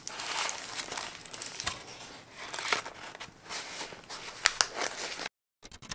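Wrapping paper around a sandwich crinkling and rustling as it is handled and packed into a box, with a few sharp crackles about halfway and again near the end. The sound cuts off suddenly.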